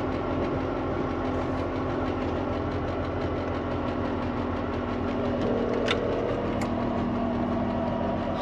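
Volvo VNL semi-truck's diesel engine idling, heard from inside the cab as the truck creeps slowly across the lot. Two short clicks come about six seconds in.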